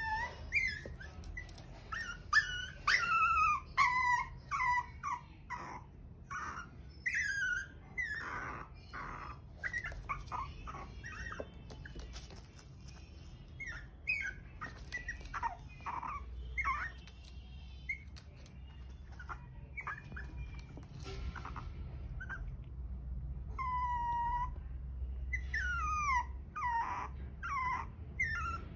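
Maltese puppy whining over and over in short, high-pitched, falling cries, with a quieter stretch past the middle: it wants to be picked up and doesn't want to stay on the floor alone.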